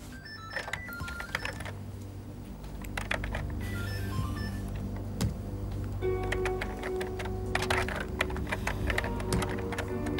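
Typing on a computer keyboard in several quick runs of key clicks, over steady background music.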